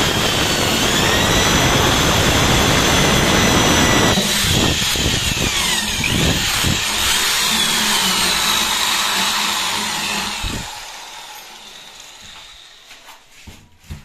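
Electric hand drill boring a 10 mm hole through a wooden door for the latch handle's spindle, with the motor whining over the bit's cutting noise. The cutting gets lighter about four seconds in. The drill stops about ten and a half seconds in and winds down.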